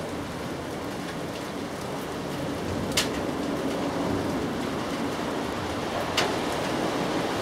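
Steady hiss of outdoor background noise, with two sharp clicks about three seconds apart.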